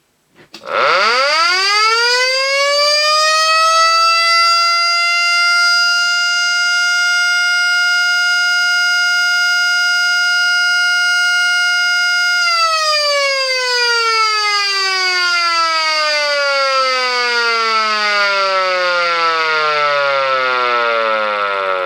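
Jurk V1 electric motor siren sounding the fire-alarm signal. It winds up to a steady, loud wail within about a second and holds it for about twelve seconds. It is then switched off and winds slowly down, falling in pitch.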